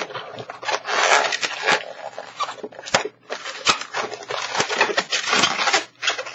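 An inflated latex 260 modelling balloon squeaking and rubbing as it is twisted by hand, in an irregular run of squeaks and rubs with brief pauses about three and six seconds in.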